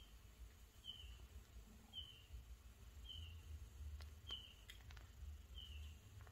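Near silence with a faint, short high chirp repeating at an even pace, about once a second, and a few faint clicks.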